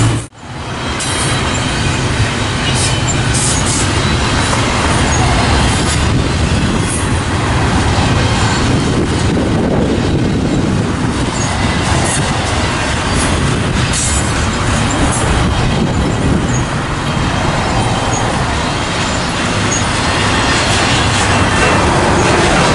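Double-stack intermodal container train rolling past: a steady rumble and rattle of steel wheels on the rails and the well cars, with scattered clicks. The sound drops out for a moment right at the start, then returns.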